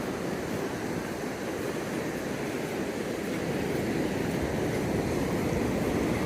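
Rough monsoon surf breaking on the beach, a steady wash with wind on the microphone, slowly growing louder.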